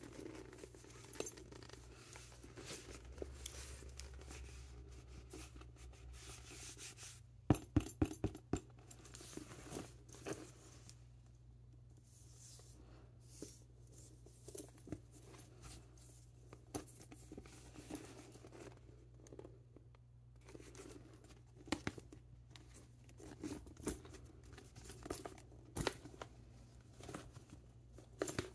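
Handling noise from a vintage Louis Vuitton Montsouris MM backpack of brown coated canvas with leather trim, the canvas and leather rubbing and rustling under the hands, with scattered clicks and taps. A quick run of sharp clicks about seven and a half seconds in is the loudest part.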